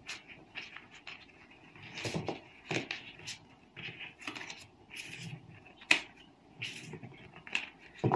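Tarot cards being slid across a tablecloth and gathered up into a deck: irregular papery swishes with a few sharp taps.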